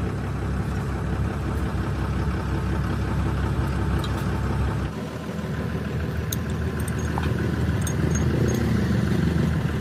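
A large engine running steadily at low speed, its sound shifting slightly about five seconds in.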